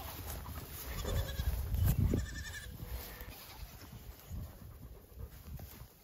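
Nigerian Dwarf baby goats bleating twice in the first half, with a low thump about two seconds in. An Anatolian Pyrenees livestock guardian dog pants softly in the second half.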